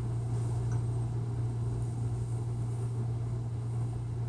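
A steady low hum with faint background hiss; no distinct handling sounds stand out.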